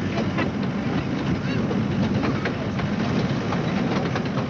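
Miniature railway carriage running along the track: a steady rumble from the wheels on the rails, with frequent irregular clicks.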